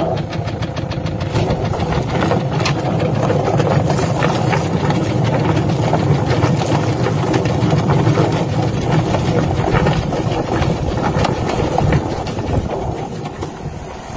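Drum-style chicken plucker running, its spinning floor plate tumbling a scalded chicken against the rubber plucking fingers with a dense, rapid clatter as the feathers come off, while a hose sprays water into the drum. The noise eases near the end.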